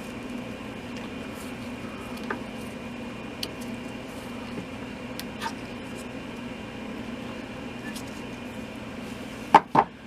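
Light ticks and clicks from handling a hatchet while tape is stripped from its handle, then two sharp knocks close together near the end, over a steady low hum.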